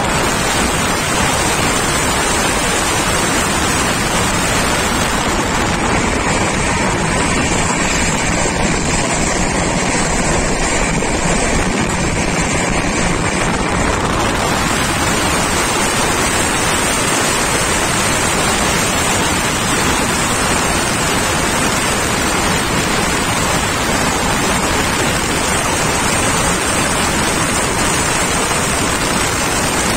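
Steady loud rush of a moving passenger train heard from inside the coach: wheels running on the rails, mixed with wind buffeting the microphone. The hiss brightens about halfway through.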